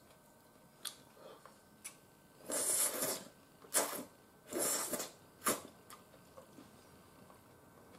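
Stir-fried udon noodles slurped into the mouth in three noisy sucks, from about two and a half to five seconds in, with a few light clicks before them.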